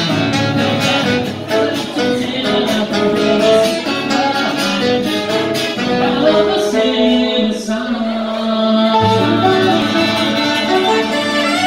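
Live small band: a man singing into a microphone, with acoustic guitar and saxophone accompanying him.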